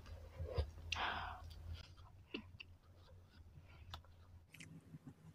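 Quiet eating sounds: a person chewing, with small wet mouth clicks. A short breathy rustle about a second in is the loudest sound.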